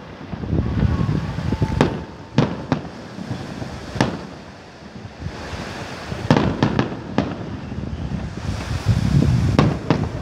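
Fireworks display: aerial shells bursting in a string of sharp bangs, with a low rumble between them. A quick cluster of reports comes about six to seven seconds in, and another near the end.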